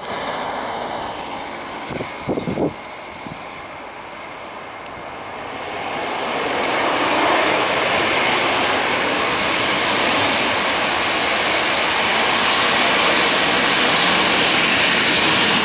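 Jet engines of a Boeing 737-800 on the runway, building up about five seconds in to a loud, steady roar that holds. A few brief thumps come near two and a half seconds.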